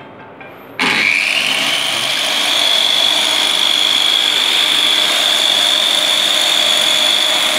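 Longde D7 tile-cutting table's electric circular saw, fitted with a diamond blade, switched on about a second in. It spins up with a quickly rising whine, then runs steadily at a high, even whine.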